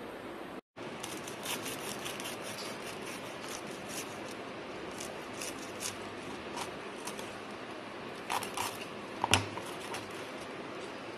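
Knife cutting through a crisp grilled sandwich on a plastic cutting board: a run of short crunches and scrapes, with a sharper knock about nine seconds in, over a steady background hiss.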